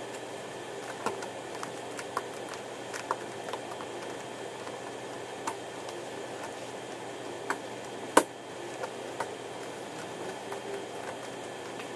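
Scattered sharp taps and slaps of people drilling jiu-jitsu on training mats, the loudest about eight seconds in, over a steady hum of room noise.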